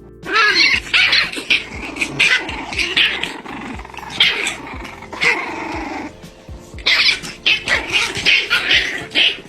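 Puppies growling and yapping in two long bouts, the second starting about seven seconds in, over faint background music.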